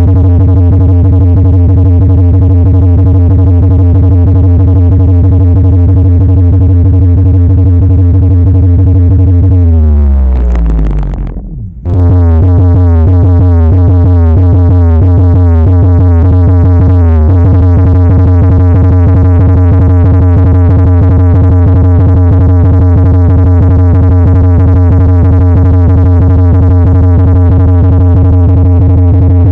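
Loud electronic dance music with heavy, steady bass, played through 18-inch PA subwoofers. About ten seconds in, the tones sweep downward and the sound drops out briefly. The beat and bass then come back.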